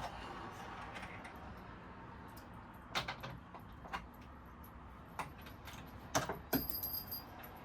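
Sofa parts being handled and worked into place during assembly: a string of separate sharp clicks and knocks, with a small cluster of them near the end.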